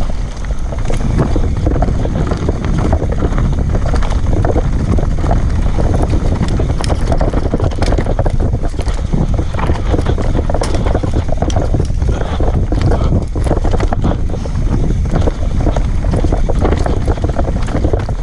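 Wind buffeting the microphone during a fast mountain-bike descent, over a steady rumble with frequent clatter and knocks from the bike on rough trail.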